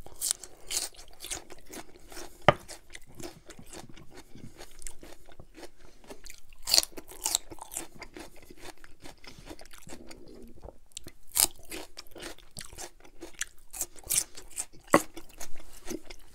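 Raw celery sticks being bitten and chewed close to the microphone: a steady run of wet, crisp crunches with a few sharper snaps.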